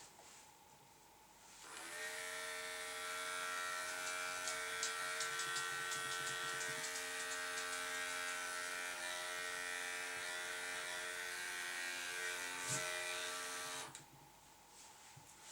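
Electric pet grooming clippers switched on about two seconds in, running with a steady hum, and switched off near the end.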